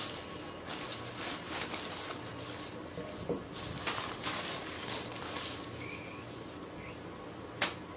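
Newspaper and thin plastic wrapping crinkling and rustling as it is torn off by hand, in irregular crackles, with one sharper click near the end.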